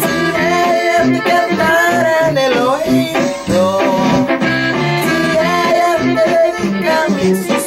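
A song with a singing voice and instruments over a steady, repeating bass line.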